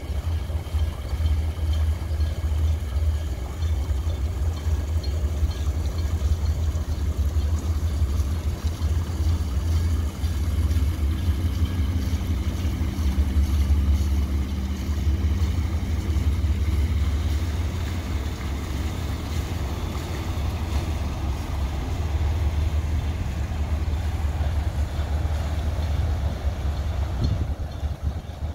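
Boat engine running with a steady low drone, with water and wind noise over it.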